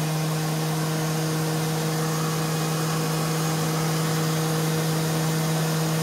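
DeWalt DW735 thickness planer's motor and cutterhead running steadily at full speed with a constant hum. The feed-roller chain turns but one sprocket freewheels because its keyed tab has broken off, so the rollers are not driven.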